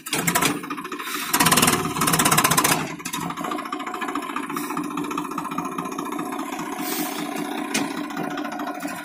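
Swaraj 855 tractor's three-cylinder diesel engine running under load as it drags a log leveller through ploughed soil, a fast steady chugging. It gets louder twice in the first three seconds, then settles to an even pace.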